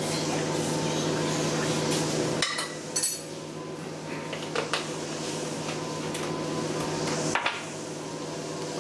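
A metal spoon stirring milk and cream in a ceramic bowl, with a few sharp clinks and knocks against the bowl and the stone counter. A steady hum runs underneath and stops near the end.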